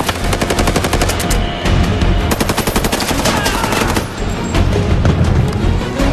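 Automatic rifle fire in rapid strings of shots, as a film sound effect over a score. The shots thin out after about four seconds.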